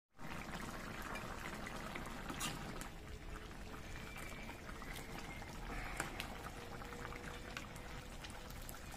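Pork batchoy broth bubbling in a pan: a steady simmer with many small pops and a couple of sharper clicks.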